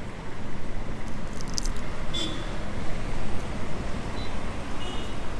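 City street traffic noise: a steady low rumble of passing vehicles, with a few brief high-pitched tones around the middle and near the end.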